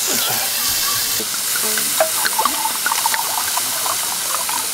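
Food sizzling in a hot pan: a steady hiss with scattered small pops and spits.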